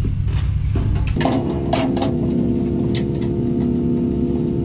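Light metallic clicks and clinks of a bolt, washer and hose bracket being fitted against a steel grill frame, over a steady hum of several held tones that starts abruptly about a second in.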